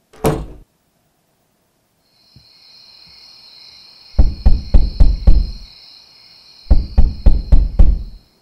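A door shuts with one bang, then a steady high-pitched chirring of crickets sets in. Over it come two loud runs of about six heavy knocks on a door, each run lasting about a second and a half.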